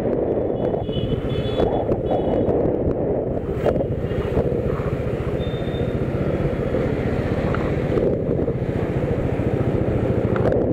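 Steady rush of wind buffeting the microphone over the noise of a vehicle moving along the road, unbroken throughout.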